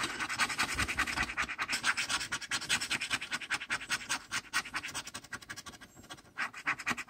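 Rapid back-and-forth scratching of a round scraper across the coating of a lottery scratch-off ticket, many quick strokes a second. The strokes pause briefly about six seconds in, then a few more follow.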